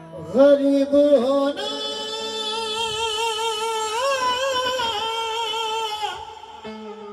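A male singer in a Sufi song holding long, high notes with a wavering vibrato, over steady held instrument tones. The voice comes in with a short phrase and stops about six seconds in.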